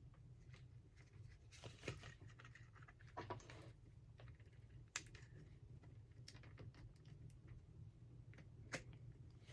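Faint, scattered small clicks and rustles of hands handling parts at a workbench, over a low steady room hum.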